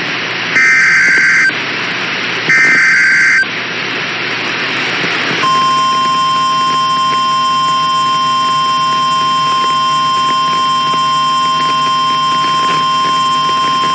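Emergency Alert System SAME header: two bursts of shrill two-pitch digital data tone, about a second each and a second apart. Then, after a short stretch of hiss, a steady single-pitch weather radio warning alert tone holds for about nine seconds, signalling that a warning message follows.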